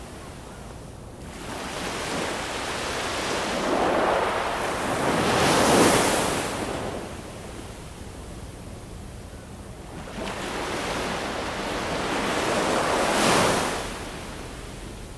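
Ocean surf: two waves wash in one after the other, each a rising hiss that builds over a few seconds and falls away, over a steady quieter wash between them.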